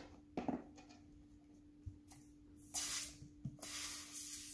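Air hissing out of an inflated rubber balloon through a small scissor cut at its neck, in two stretches of under a second each in the second half, so the balloon goes down without popping.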